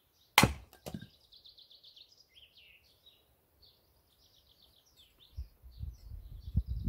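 Small songbirds singing in quick repeated trills, with a sharp loud knock about half a second in and a lighter knock half a second later. From about five and a half seconds a low, uneven rumble comes in.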